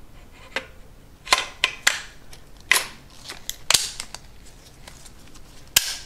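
Upper and lower receivers of a Freedom Ordnance FX9 pistol being fitted back together and handled during reassembly: a series of sharp metal clicks and clacks, with a last sharp click near the end.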